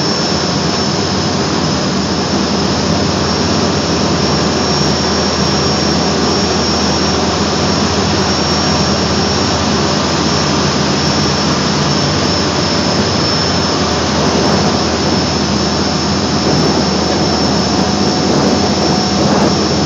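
Aluminum seine skiff's engine running hard and steady under heavy load as the boat pulls against a tow line made fast to a piling, with the propeller wash churning the water. A steady high whine sits over the engine noise.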